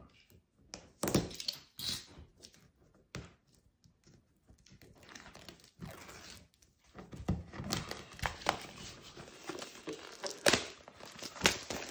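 Cellophane shrink-wrap being torn and peeled off a cardboard keyboard box, with crinkling and irregular tearing, plus occasional thunks of the box being handled.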